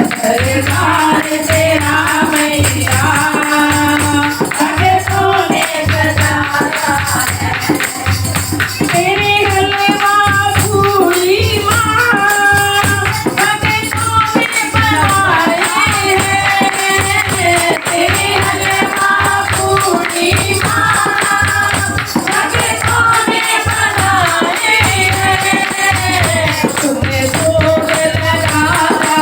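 Hindu devotional bhajan music: a pitched melody over a steady low drum beat, a little over one stroke a second, with jingling percussion.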